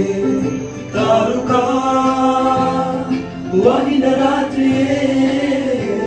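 Music with a voice singing long, held notes.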